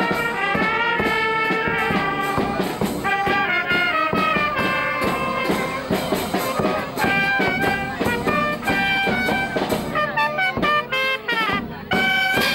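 Brass band playing a tune with a steady beat.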